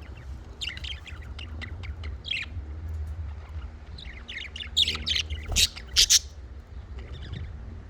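Budgerigars chattering and chirping in quick bursts, with a few loud, sharp squawks about five to six seconds in, over a low steady hum.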